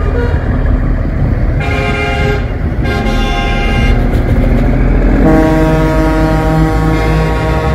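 Truck air horn blowing three times, several tones at once: two short blasts, then a long one of about three seconds. Under it, the low running of the big diesel truck's engine as it pulls past.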